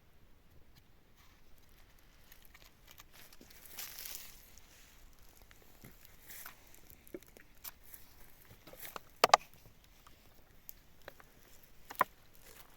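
Scattered light handling sounds: soft clicks, knocks and a brief rustle about four seconds in, with two sharp clicks just after nine seconds and another near the end.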